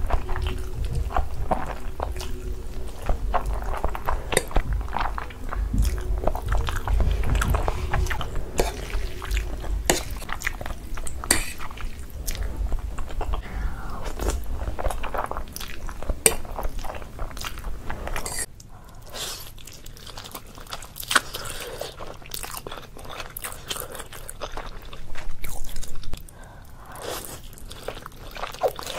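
Close-miked eating of noodles: wet slurps, chewing and mouth smacks, dense with short clicks. The sound becomes quieter and loses its low rumble about two-thirds of the way through.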